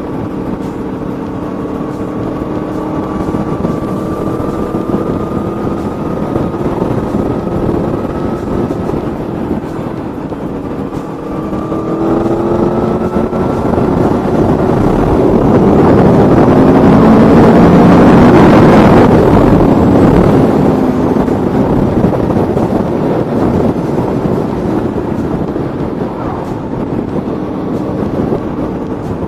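Aprilia Tuono V4 motorcycle's V4 engine under way, its pitch climbing steadily through a gear, dropping at a shift about eleven seconds in and climbing again. A louder rush swells and fades in the middle.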